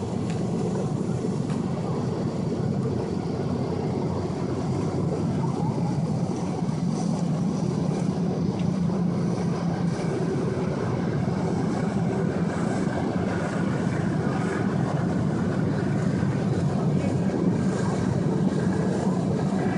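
Steady low rumble of boat engines on the water, a little louder in the second half.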